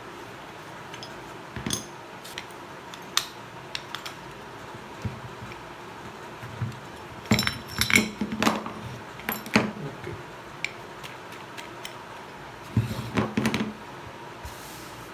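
Metal clinking and clattering of motorcycle drum-brake parts being handled as new rear brake shoes and their return springs are fitted. Scattered single taps, with bursts of ringing clatter about halfway through and again near the end.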